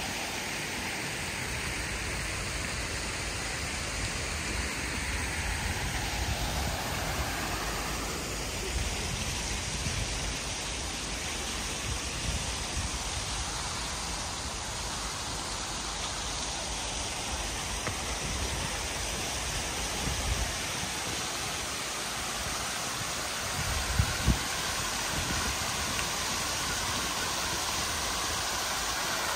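Fountain jets splashing into a shallow pool: a steady hiss of falling water, with a low rumble underneath and two short thumps near the end.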